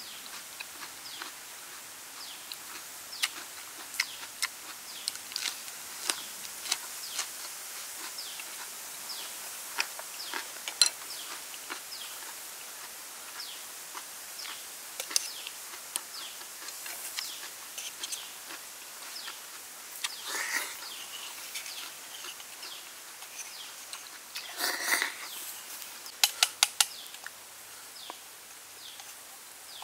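A person eating stuffed snails by hand: many small wet chewing and smacking clicks and sharp taps of snail shells and spoon, with a couple of louder sucking sounds about two-thirds of the way through, over a steady outdoor hiss.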